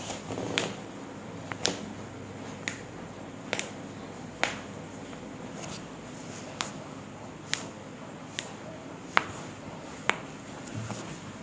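A series of about ten sharp, isolated clicks, roughly one a second, over a faint steady background.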